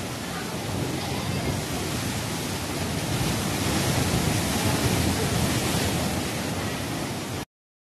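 Rough sea surf thumping and crashing against rocky cliffs: a continuous rushing wash of breaking waves that grows louder in the middle, then cuts off abruptly near the end.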